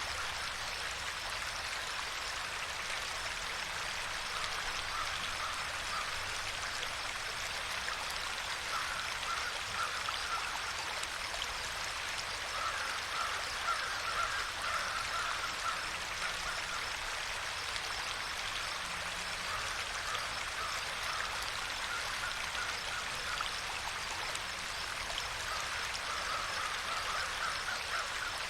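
Water flowing steadily, like a stream or brook, with several stretches of rapid, pulsing animal calls over it.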